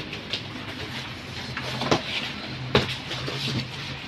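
Handling noise: a few knocks and clicks, the two loudest about two and three seconds in, over a steady low hum.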